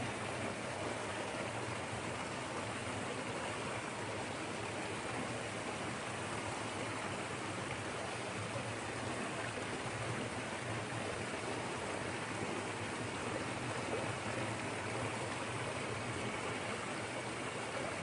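Small creek waterfall pouring over a log jam into a shallow pool: a steady, unbroken rush and splash of falling water.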